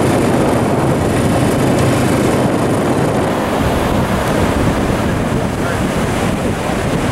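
Steady rush of wind over the microphone while riding in an open side-by-side UTV, mixed with breaking surf.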